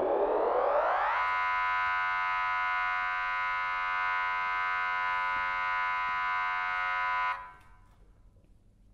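Heavily effected electric guitar: a dense chord glides upward in pitch for about a second, then holds as a steady, buzzing drone, cut off suddenly about seven seconds in.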